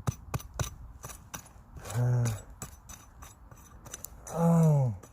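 Hand digging tool striking and scraping into soil and tree roots in quick, irregular knocks. A man gives two short wordless grunts or hums, the second falling in pitch.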